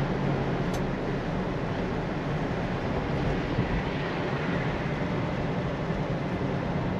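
Steady road and engine noise inside the cabin of a 1966 Ford Mustang cruising at about 50 mph.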